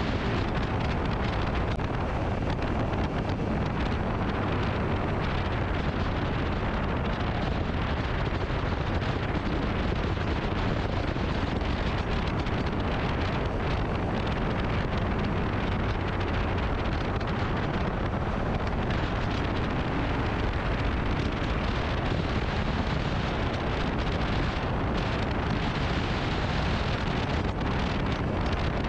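Steady wind rush on the microphone of a motorcycle riding at speed, with the engine running underneath.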